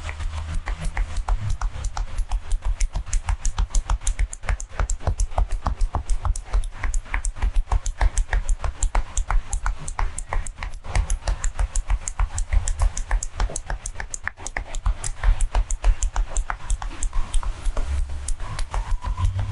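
Percussive hand massage: the masseur's hands striking a person's body in fast, even slaps, several a second, with a couple of brief breaks.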